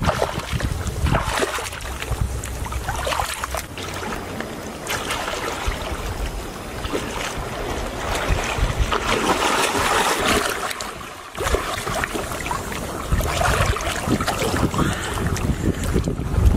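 Shallow seawater splashing and sloshing around the legs of a person wading through it, with wind rumbling on the microphone.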